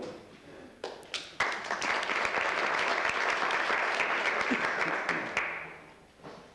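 Audience applauding: a few scattered claps, then the clapping swells within a second, holds for about four seconds and dies away.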